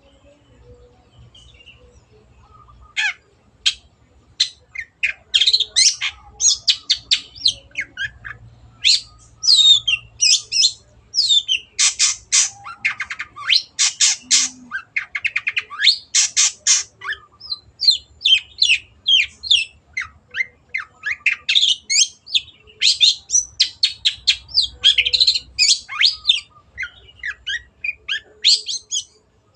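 Long-tailed shrike (cendet) singing: a fast, near-continuous run of sharp, scratchy chattering notes that starts about three seconds in.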